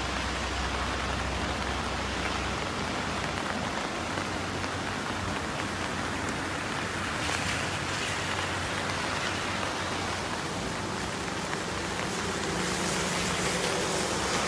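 Heavy tropical rain falling steadily, an even hiss that swells slightly near the end, with a low rumble under it for the first couple of seconds.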